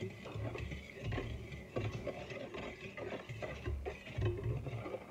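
Wire whisk stirring flan mix in a stainless steel mixing bowl, the wires tapping and scraping against the metal in an uneven, quick rhythm, with dull low knocks now and then.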